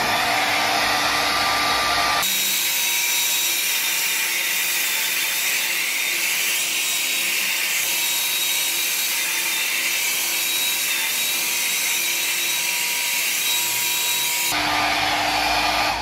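Croma hair dryer running at its higher speed setting (2) and blowing onto wet hair: a steady rush of air with a thin whine.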